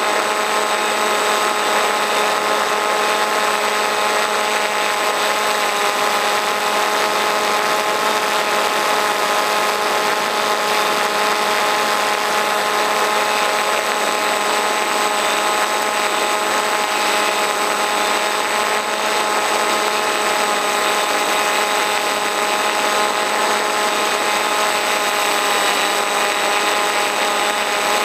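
RC model plane's motor and propeller running at a steady speed, heard through a camera mounted on the plane in flight: a constant whine of several steady pitches over rushing wind noise.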